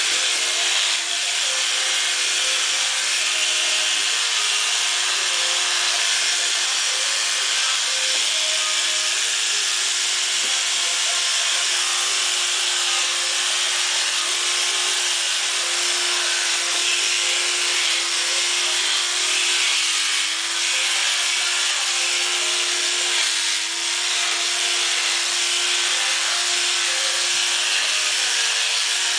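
Corded electric dog grooming clippers running steadily as they are drawn through a cocker spaniel's coat: a constant motor hum over a hiss, its pitch sagging briefly a couple of times as the blades meet the hair.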